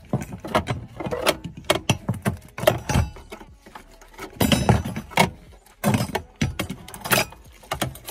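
Rapid, irregular clicks and knocks of a fuel pump module's locking ring being turned off by hand and the module's fittings being handled, with rubber-glove rubbing.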